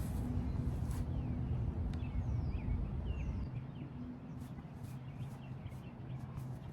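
Outdoor ambience: a steady low rumble with a faint hum, and a bird chirping several times with short quick notes in the middle.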